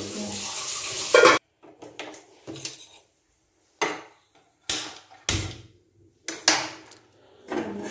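A steady rush of running tap water cuts off suddenly about a second and a half in. It is followed by a string of separate clicks and knocks, about eight with short pauses, as kitchen utensils are handled and a gas stove burner is lit with a hand-held gas lighter.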